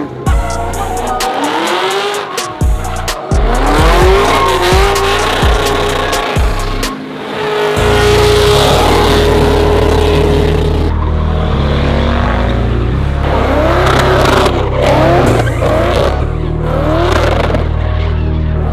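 Car engines revving hard in rising and falling sweeps, with tires squealing as cars spin donuts, over background music with a heavy bass line that comes in about eight seconds in.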